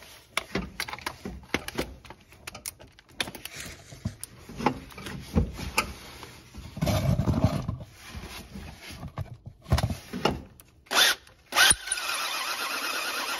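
Scattered clicks and knocks of tool handling, then a cordless drill runs steadily near the end, turning a Time-Sert counterbore tool in a bolt hole of an aluminium engine block.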